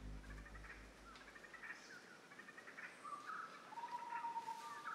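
Faint forest birdsong: several birds chirping in short calls, with one held whistling note lasting about a second near the end. A low hum fades out in the first second and a half.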